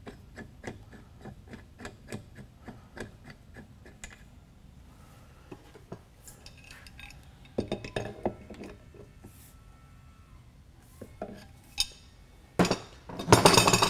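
Light metallic clicks and clinks of a filter assembly's swivel fitting being threaded by hand onto a JIC adapter: a quick run of small ticks, then a couple of louder knocks, and a louder clatter near the end as the filter housings are handled.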